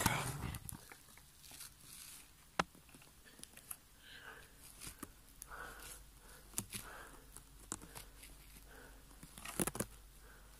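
Faint rustling and handling noise of someone moving slowly through a small dark room with a handheld camera, with scattered soft clicks and a sharper click about two and a half seconds in, and a few more clicks near the end.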